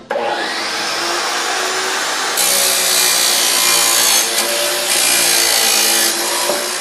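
DeWalt abrasive chop saw starting up and cutting through metal: the motor whines up, and about two seconds in the wheel bites, adding a loud hissing grind for about three and a half seconds before it lets off and the wheel winds down.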